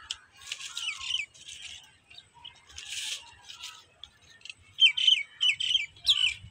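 Small birds chirping: runs of short, high chirps that slide down in pitch, loudest in a quick series near the end.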